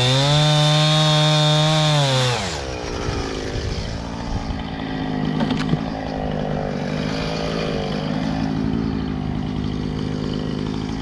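Husqvarna 395 XP two-stroke chainsaw running at high, steady revs, which drop away about two seconds in. The saw then carries on at a lower, rougher, wavering note.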